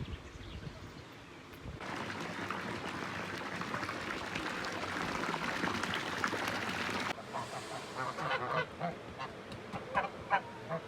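Farm waterfowl calling: a dense chorus of many birds starts about two seconds in and cuts off abruptly after about seven seconds, followed by separate calls, several close together near the end.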